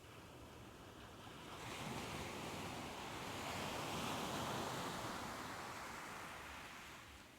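Soft ocean waves: one wave swells in as a rushing hiss about a second and a half in, peaks, then washes back out and fades near the end.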